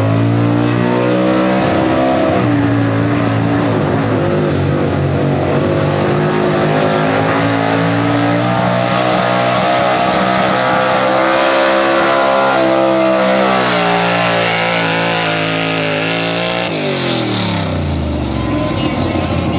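Small-block V8 in a Chevrolet 4x4 pulling truck at full throttle dragging a pulling sled, its pitch rising and dipping as the tyres bite and spin in the dirt. About 17 s in the revs fall away sharply as the throttle is let off, leaving a steadier, lower engine note.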